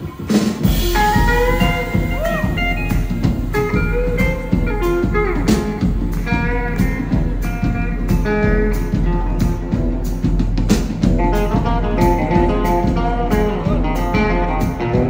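Live band playing: an electric guitar line with a few bent notes over a drum kit's steady beat.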